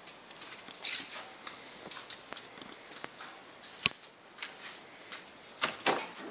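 Scattered light taps, clicks and rustles of someone walking and handling a small handheld camera, with one sharp click about four seconds in and two louder knocks near the end.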